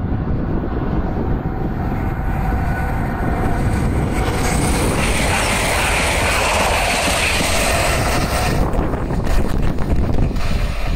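A train passes on the main line, its rushing noise building, peaking for about four seconds in the middle, then dropping away. Wind buffets the microphone throughout.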